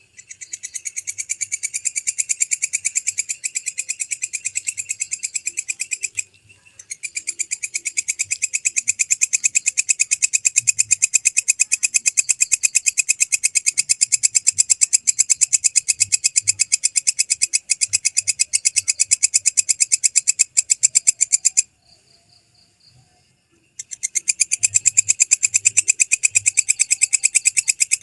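Belalang kecek (walang kecek) katydid stridulating: a loud, rapid pulsing trill that runs in long bouts, breaking off briefly about six seconds in and again for about two seconds after twenty-one seconds.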